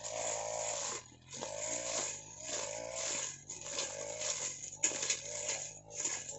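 Backpack brush cutter's small engine running under load as it cuts through weeds, its revs surging and dropping back several times as the shaft is swept from side to side.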